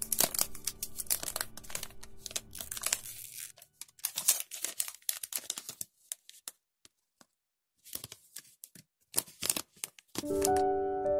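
Thin clear plastic protective film crackling and crinkling as it is peeled off a smartphone's back and handled, in irregular bursts with short quiet gaps. Background music plays during the first three seconds and comes back near the end.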